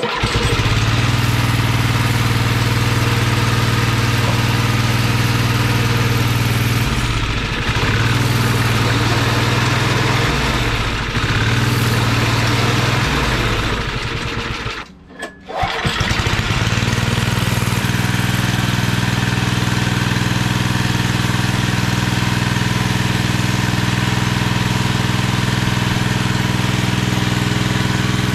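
Small single-cylinder snowblower engine on a homemade tracked snowmobile starting up and running at a steady speed, sagging in speed briefly three times. About halfway it breaks off for under a second, then runs steadily on.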